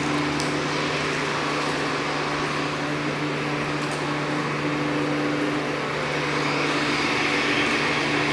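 A steady mechanical drone: a constant low hum with an even hiss above it, unchanging throughout.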